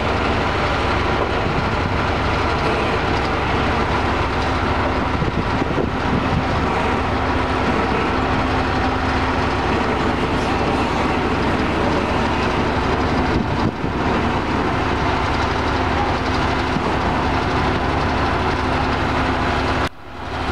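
Steady running of construction-site machinery: an engine's constant hum under a broad, even noise. The sound dips once briefly partway through and cuts out for a moment near the end.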